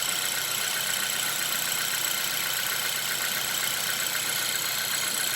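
Hyundai Veloster engine idling steadily, heard close up with the hood open, running after its ignition coil boots were replaced.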